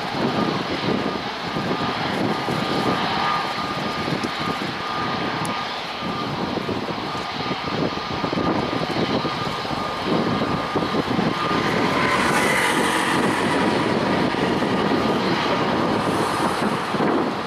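The CFM LEAP-1A turbofan engines of an Airbus A320neo running: a steady rushing noise with a thin whining tone, growing louder and hissier about twelve seconds in.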